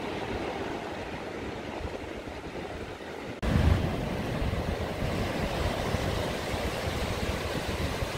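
Surf washing up a sandy beach, a steady wash of noise. About three seconds in, the sound jumps louder, with wind rumbling on the microphone.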